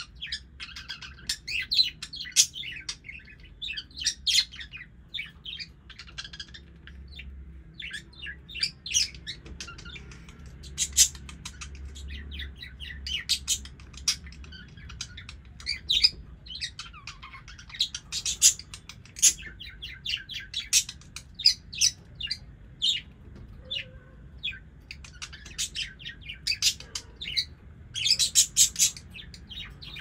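Pet budgerigars chirping and warbling almost without pause, a rapid chatter of short high chirps with louder bursts every few seconds, over a faint low hum.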